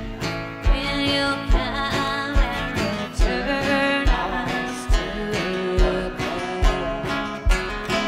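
Live acoustic folk music: a steel-string acoustic guitar and a banjo played together, with sung vocals. A low thump marks each beat, a little more often than once a second.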